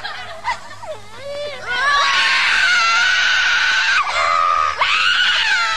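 A group of cartoon children crying and wailing together. Softer sobbing in the first two seconds turns into long, held, high-pitched howls, with a short change in pitch about four seconds in.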